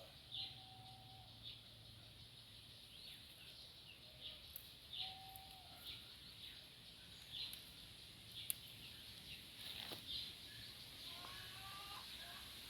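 Faint farmyard ambience: small birds chirping in short, repeated calls, with a few lower fowl calls, one of them stepped in pitch near the end, over a steady high insect hiss.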